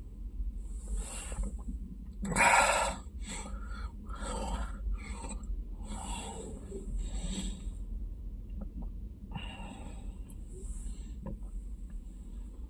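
Close-up eating noises, chewing and breathing near the microphone, in a run of short bursts. The loudest burst comes about two and a half seconds in, over a low steady hum.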